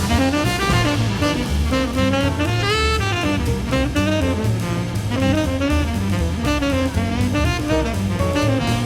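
Background jazz music with saxophone melody over drums and bass.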